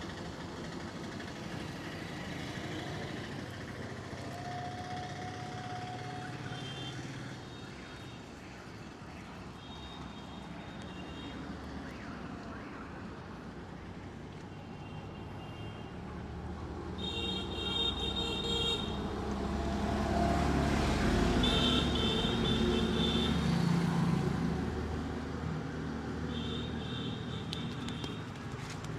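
Roadside traffic: vehicles running past, with short horn beeps sounding several times. A heavier vehicle passes in the second half, the rumble swelling and then fading.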